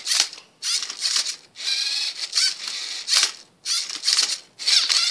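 The MindCuber robot's LEGO Mindstorms NXT motors whirring in a quick series of short spurts, each under a second, with a high whine and plastic rattle as its arm tilts and flips the Rubik's Cube and the cradle turns it.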